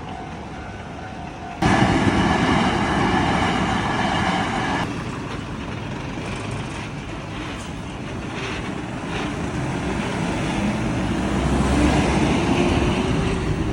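A heavy Hino truck's diesel engine running as it rolls over a railway level crossing, with a louder steady noise that starts suddenly and cuts off a few seconds later. A few short knocks come midway, and the engine note rises near the end as the truck pulls away.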